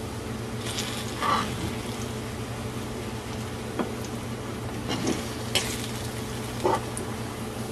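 Plantain slices sizzling in hot grapeseed oil in a frying pan, with about five sharp taps and clinks of a fork against the pan, over a steady hum.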